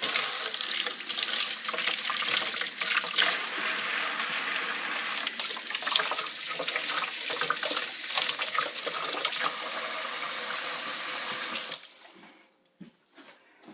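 Water running hard from a tap and splashing, with small irregular clicks through it, then shut off abruptly near the end.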